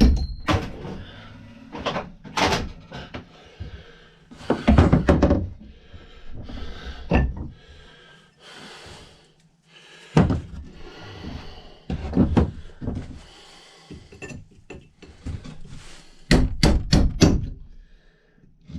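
Hammer blows driving the old hickory handle wood out of an axe head's eye, where it is rusted in and stuck. Single knocks come every second or two, then a quick run of about five blows near the end.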